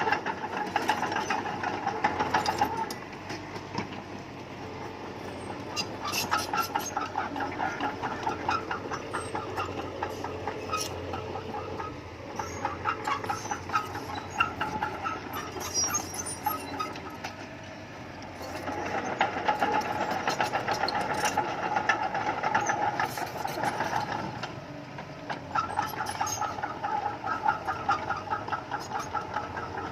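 Crawler bulldozer at work, its diesel engine running under changing load while the steel tracks clank and squeal in a rapid rattle. The engine grows louder and eases off several times as the blade takes up soil and backs away.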